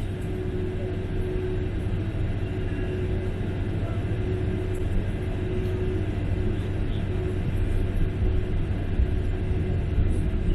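Boeing 747 jet engines running, a steady low rumble with a faint hum that comes and goes.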